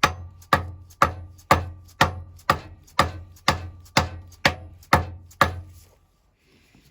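A hammer tapping a valve plug on a Lister Q Type engine's cylinder head, about two sharp, ringing taps a second, to bed the plug into its seat. The tapping stops about five and a half seconds in.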